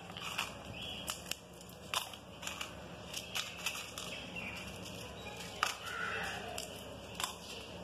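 Dried red chillies being handled and dropped into a steel grinder jar of whole spices: scattered light, crisp clicks and crackles.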